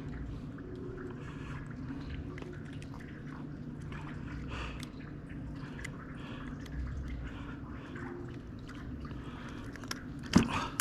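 Light rain falling as scattered small drip-like taps over a low steady hum, with one sharp knock near the end.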